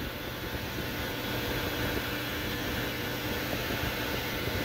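Metal lathe running with its chuck spinning in reverse, the wrong direction for this cut, as the turning tool is fed in toward a screw head. A steady machine hum with a few faint whining tones.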